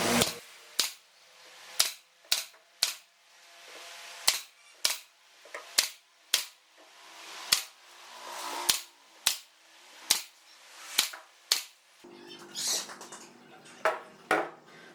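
Repeated sharp knocks of a hand tool striking wood, irregular at about one to two blows a second, each dying away quickly.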